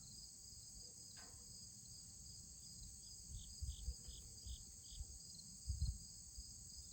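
Faint steady chorus of crickets or similar insects, high and even. About three seconds in comes a run of five short high chirps, evenly spaced, and there are a few soft low thumps.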